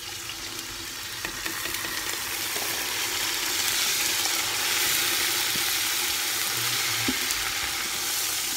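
Watery ginger-garlic paste sizzling in hot oil and browned onions in a large aluminium pot as a wooden spoon stirs it. The sizzle builds over the first few seconds and stays strong, with a few light knocks of the spoon against the pot.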